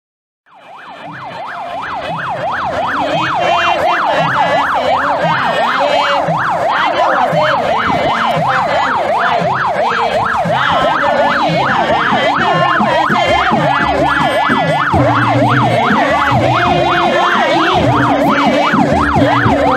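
Escort car's electronic yelp siren sweeping rapidly up and down in pitch, several times a second, fading in over the first few seconds and then holding steady.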